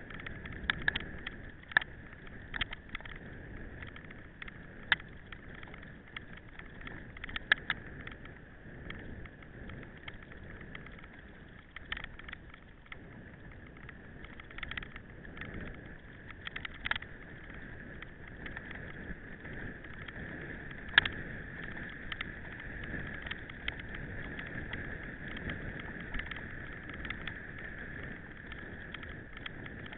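Mountain bike riding over rough ground: a steady hiss of tyre and wind noise, with many sharp clicks and knocks as the bike jolts over bumps, thickest in the first third and loudest about two-thirds through.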